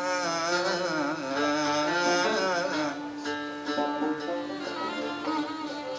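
Male voice holding a long, wavering ornamented note over a plucked lute; about halfway through the voice drops out and the lute plays on with steadier notes.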